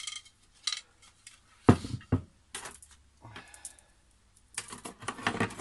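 Ceramic bonsai pot set down on a wooden workbench while tools and wire are handled: scattered light clicks and clatter, two heavier knocks about two seconds in, and a burst of clatter near the end.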